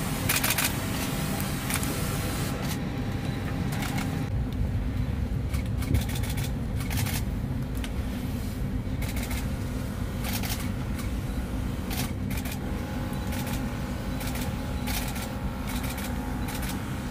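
Steady low rumble inside a parked airliner cabin, with brief bursts of noise every few seconds.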